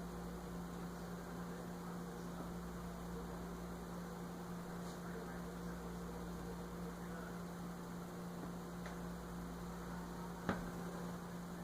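Steady low electrical hum over a faint hiss, with a single short click about ten seconds in.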